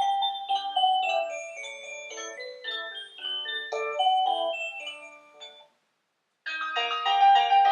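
Electronic shop entry chime playing a melody of quick, bell-like decaying notes that fades and stops about six seconds in. After a brief silence, another melody starts.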